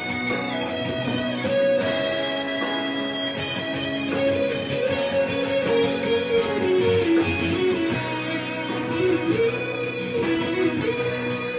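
Ibanez electric guitar playing a melody of held, changing notes, with a steady beat behind it.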